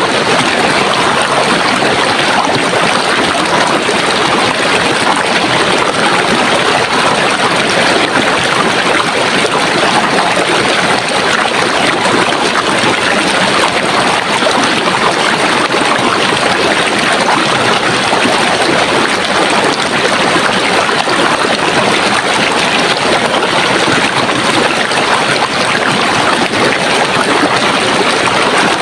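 Running water flowing steadily, a continuous even rush like a stream.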